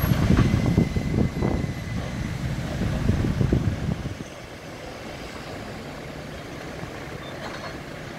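JCB backhoe loader's diesel engine running, with irregular knocks and clatter over it for the first four seconds. After that the knocks stop and only a quieter, steady engine rumble is left.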